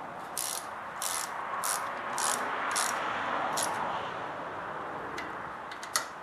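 Small ratchet wrench clicking on its back-swings while tightening the ignition module's mounting bolts: about six short bursts of pawl clicks a little over half a second apart. A single sharp metallic click comes near the end.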